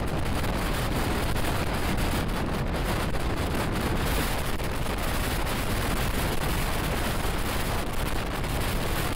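Moving express train's running noise: a steady rush of wheels on rails with many small rapid clicks and rattles.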